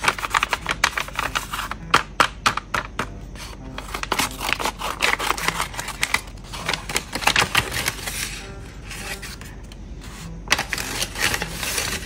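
Paper crinkling and rustling as a hand-made paper blind bag is handled and opened, with scissors cutting through the paper around the middle.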